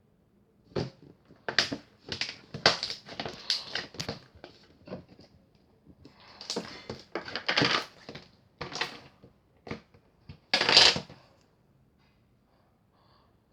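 Irregular crinkling, rustling and clicking of something being handled, in uneven bursts with short pauses.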